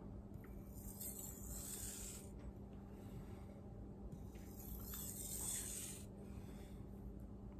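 Miyabi Mizu SG2 kiritsuki blade drawn across a wet Japanese water stone: two light, faint scraping strokes, each about a second long and nearly four seconds apart. These are light strokes to reduce and refine the burr on the edge.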